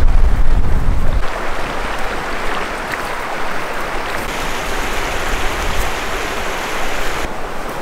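Steady rushing of a mountain creek, a hiss without pitch, with low wind rumble on the microphone for about the first second. The sound changes abruptly a few times.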